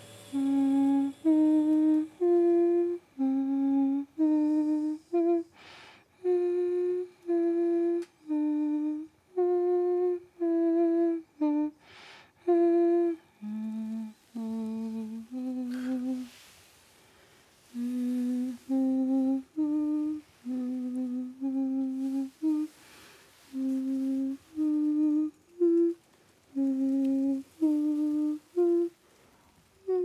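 A woman humming a slow melody, one held note after another with short pauses between phrases.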